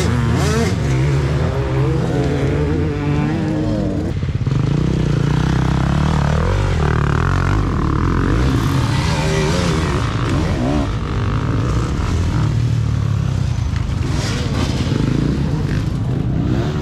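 Off-road dirt bike engines revving hard and easing off over and over as riders accelerate through the dirt track, the pitch sweeping up and down with each throttle change.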